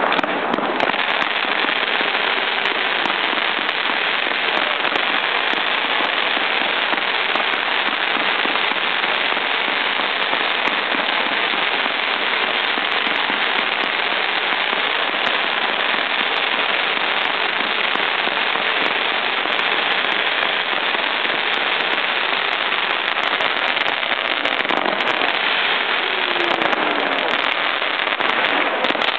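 Fireworks display: a dense, unbroken barrage of firecrackers and bursting shells at a steady level.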